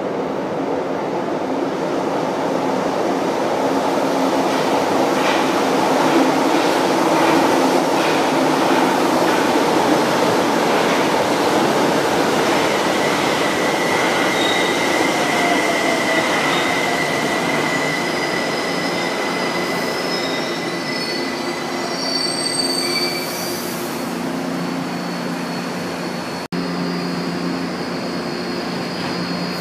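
São Paulo Metro Line 1 train running into the station and braking to a stop: a loud rushing of wheels on rail that builds and then eases, with a high, steady squeal from the wheels and brakes through the slowing; once the train stands, its equipment hums steadily.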